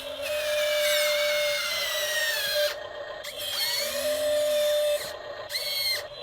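Small electric motors of a remote-control model excavator whining in three bursts: a long one with its pitch sliding down, a shorter one after a brief pause, and a short burst near the end.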